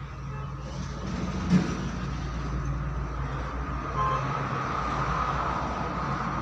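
Electric rickshaw running, a steady low hum from its motor and rear axle gears with a steady whine over it that grows a little stronger in the second half. A single short knock comes about one and a half seconds in.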